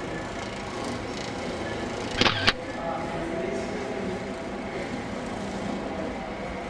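Electric shoe-polishing machine running with a steady motor hum as a shoe is pressed against its spinning brush, with a short louder scrape about two seconds in.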